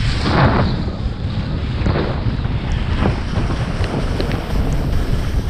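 Wind buffeting the microphone during a fast downhill ride on snow, a steady low rumble. Over it come hissing scrapes of edges carving across the snow, the loudest about half a second in and more roughly once a second after.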